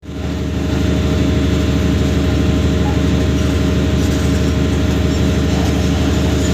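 Heavy diesel engine of a Sany SY350 excavator running steadily, a loud constant low drone with a fast even throb.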